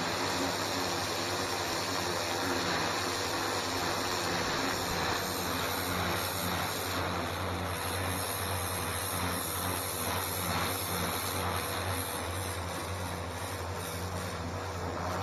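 Stihl pressure washer running steadily: its pump motor hums beneath the hiss of the high-pressure water jet spraying onto stone patio paving.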